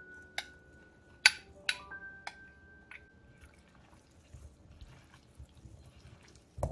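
Light background music of plinking bell-like notes for the first half. After the notes die away comes soft, wet squishing as hands toss raw chicken wings in a dry flour-and-seasoning coating in a glass bowl, and a short knock sounds just before the end.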